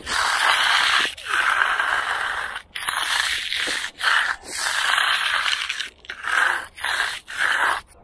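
Steel hand trowel scraping over the edge of a fresh concrete slab during finish troweling, in repeated strokes about a second long, with shorter, quicker strokes near the end.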